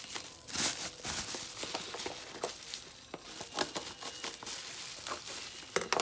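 Plastic wrapping on a trading card box crinkling as the box is handled, with irregular small crackles and clicks.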